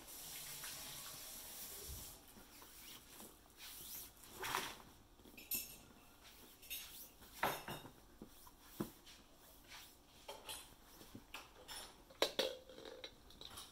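Scattered soft knocks and rustles of a baby crawling over vinyl-covered foam play mats, its hands and knees bumping and sliding on them. A faint steady hiss runs through the first two seconds.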